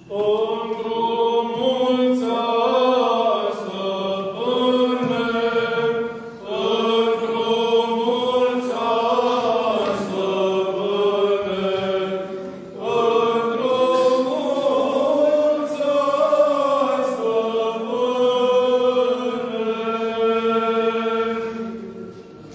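Orthodox church chant sung by voices, held notes moving slowly in pitch, in three long phrases with short breaks about six and thirteen seconds in.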